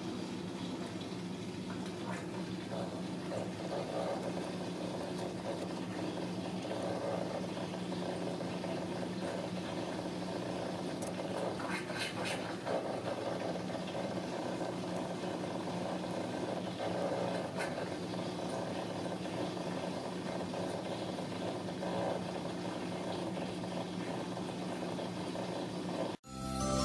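Ragdoll mother cat purring steadily while nursing her newborn kittens, with faint soft sounds of the kittens suckling.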